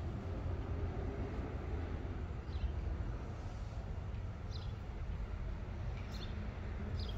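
Steady low outdoor rumble with a few short, high chirps of small birds, each a quick falling note, coming every second or two.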